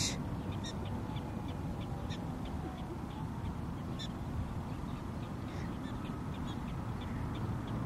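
Prairie dogs giving a long run of short, high-pitched chirping alarm calls, about two or three a second. The calls are faint over a steady low background noise.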